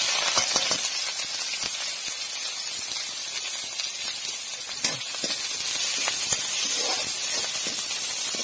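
Chopped onion and ginger frying in hot oil in an iron kadai, sizzling steadily, with a few light knocks against the pan as they are stirred.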